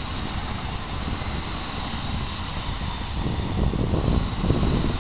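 Odakyu Line electric commuter train running past on the tracks below, a steady rumble of wheels on rail that grows louder about three seconds in.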